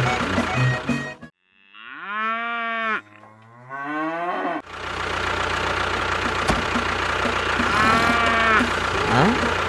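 Music stops about a second in; then cattle moo, one arched call followed by a lower sliding one. A steady low mechanical hum follows, with another moo near the end.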